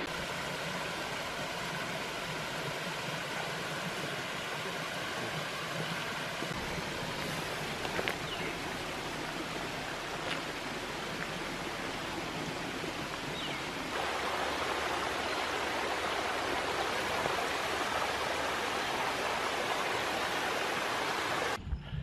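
A small mountain stream cascading down a rocky gully: a steady splashing rush of water that grows slightly louder about two-thirds of the way through.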